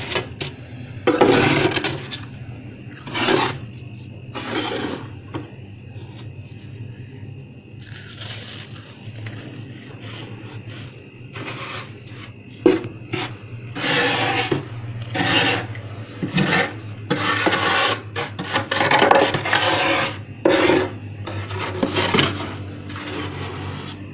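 Steel spatula scraping soft built-up freezer frost: a long run of irregular rasping scrapes, each up to about a second long, coming faster and louder in the second half. A steady low hum runs underneath.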